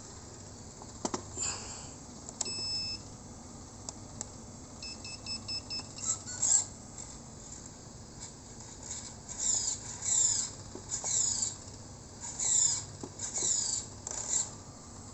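Electronic beeps from RC car electronics: one beep of about half a second, then a quick run of five short beeps. Later comes a series of about six high chirps, each sliding down in pitch, roughly one a second.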